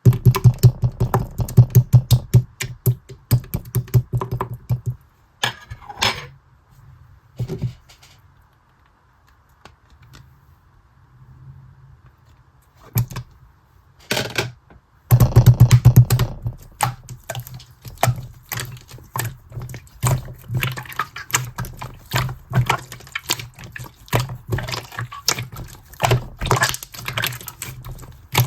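Slime being pressed and squeezed by hand, giving fast runs of sharp clicks and pops. It goes quiet for several seconds in the middle, then picks up again.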